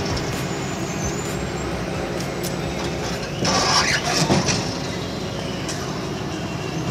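Wheeled excavator's diesel engine running steadily while its arm works, with a louder rushing burst for about a second near the middle.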